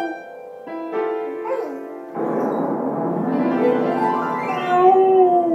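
A dog howling along to music. Near the end, one long howl that slides down in pitch as it ends.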